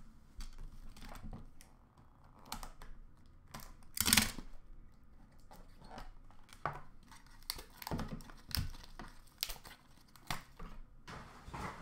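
Hands handling foil-wrapped hockey card packs and cards: crinkling and tearing of the foil wrapper, with scattered light rustles and clicks. The loudest is a short burst of crinkling about four seconds in.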